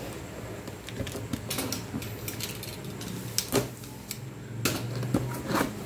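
Cardboard box being handled and torn open by hand: scraping and rustling with several sharp rips and clicks, the loudest about three and a half, four and a half and five and a half seconds in.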